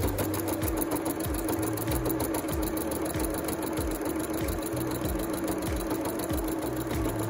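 Janome electric sewing machine running steadily, stitching through layered quilt fabric: a steady hum with a rapid, even needle clatter.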